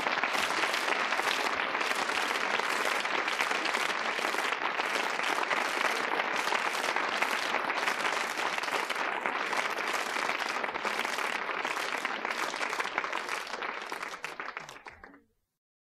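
Live audience applauding, a dense steady clapping that thins a little and then cuts off abruptly near the end.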